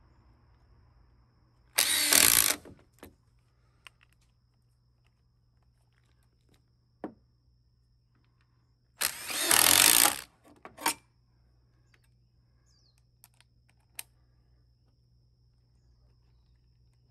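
A power tool run in two short bursts of about a second each, some seven seconds apart, with a few faint clicks and knocks between them.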